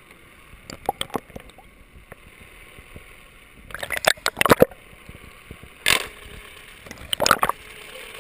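Water sloshing and splashing at the sea surface, with several short, sharp splashes coming in clusters.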